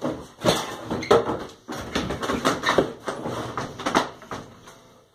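A scuffle with a shovel: a quick, irregular run of knocks and bangs, about two or three a second, dying away near the end.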